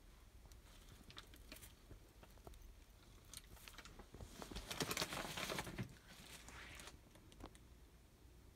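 Faint rustling and crinkling close to the microphone, with a few light clicks, swelling to a louder rustle for about a second and a half around the middle.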